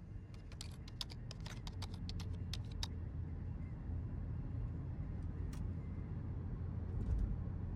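A quick run of light clicks in the first few seconds, then a few single clicks, over a steady low rumble that grows a little louder.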